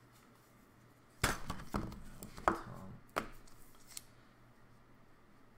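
A run of sharp knocks and clacks from trading cards and their hard plastic cases being handled and set down on a table, the loudest about a second in and again near halfway.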